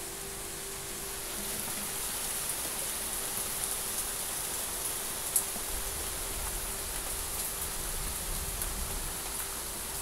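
Steady rain hiss with scattered small drop ticks and one sharper tick about five seconds in.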